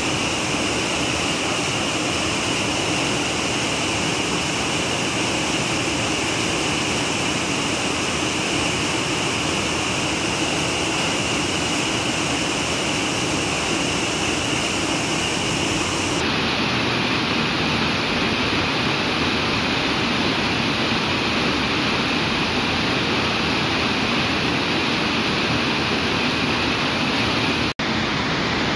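Whitewater of a rocky river waterfall rushing steadily, a constant heavy wash of water. The sound drops out for an instant near the end.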